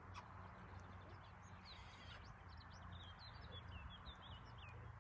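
A small songbird singing a quick run of short, high chirping notes, starting about a second and a half in and stopping near the end, faint over quiet outdoor background noise.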